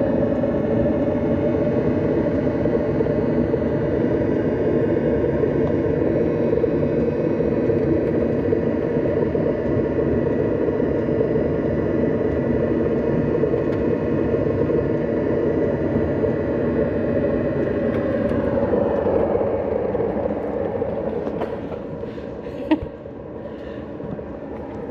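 Autoterm Air 2D 2 kW diesel air heater running, heard up close from under the vehicle by its exhaust: a steady combustion rumble with a constant hum. It grows quieter about three-quarters of the way through, and there is a single sharp click near the end.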